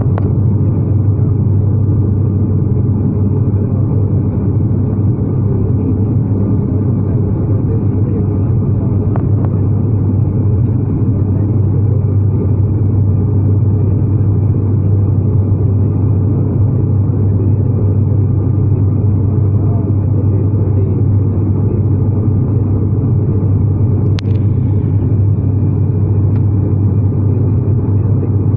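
Steady drone of an ATR 72 turboprop airliner's engines and propellers, heard inside the cabin during the climb after takeoff, with a strong low hum.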